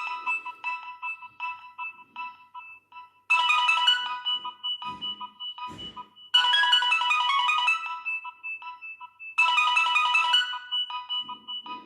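Nokia 6030 mobile phone playing one of its built-in ringtones: a short phrase of quick, high notes repeating about every three seconds, with sparse beeps in between.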